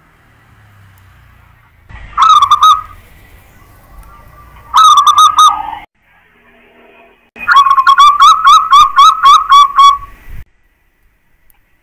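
Zebra dove (perkutut) cooing in three phrases: two short ones, then a longer one of about a dozen quick, clipped notes.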